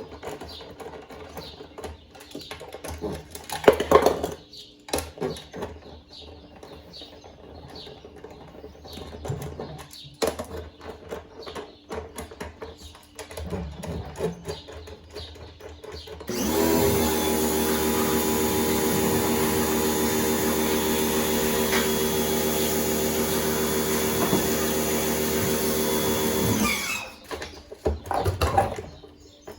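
Clicks and knocks of tools and parts being handled. Then, about halfway through, an electric power tool's motor starts abruptly, runs steadily for about ten seconds and stops.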